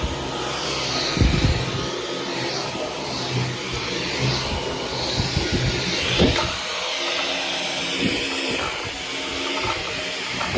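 Dyson V15 Detect cordless stick vacuum running steadily on medium power with a high motor whine, its turbine head pushed back and forth over carpet. A few short knocks come about a second in and again about six seconds in.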